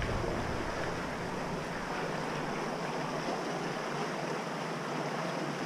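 Steady hiss of light water lapping along a rocky shoreline, with a low wind rumble on the microphone dropping away just after the start.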